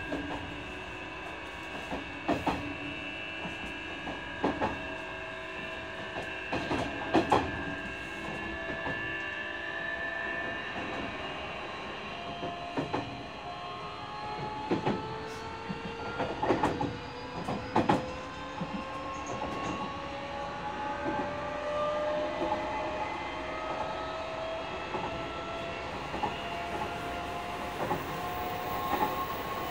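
Nishitetsu 9000 series electric train heard from inside the car: its Toshiba hybrid-SiC IGBT-VVVF inverter and enclosed induction traction motors whine steadily at first, then from about twelve seconds in several tones rise slowly in pitch as the train gathers speed. Wheels clack sharply over rail joints now and then.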